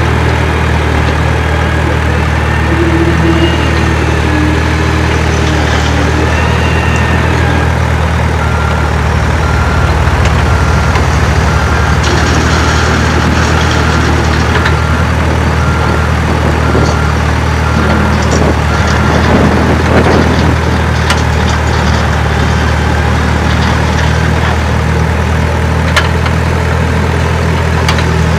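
Heavy diesel engine sound idling steadily, as from a truck or excavator. Faint short beeps come about twice a second for several seconds in the middle.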